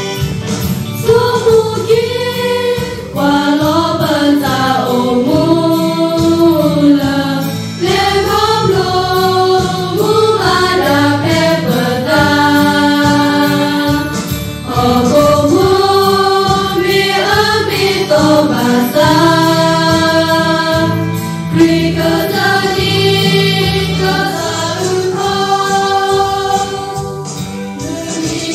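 A group of girls singing a hymn together from song sheets, with one voice amplified through a handheld microphone; the notes are held and move together in phrases.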